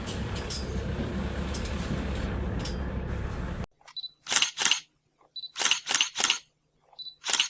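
Camera shutter sound effect: a short high beep like an autofocus confirmation, followed by quick shutter clicks, three times over (two clicks, three clicks, two clicks) against silence. Before it, a steady rushing noise cuts off abruptly about three and a half seconds in.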